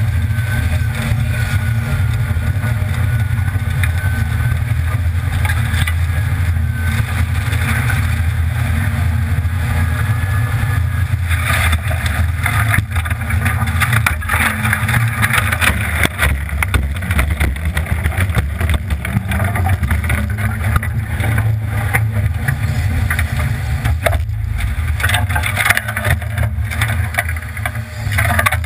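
Ford F-150 pickup's engine running at low revs as the truck drives through a shallow stream, with water splashing and sloshing around it, heavier from about twelve seconds in.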